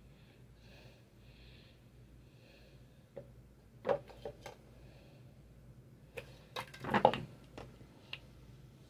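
Light knocks of a plastic cup on a wooden desk as a kitten paws at it, with a few taps about four seconds in and a louder clatter about seven seconds in as the cup tips over.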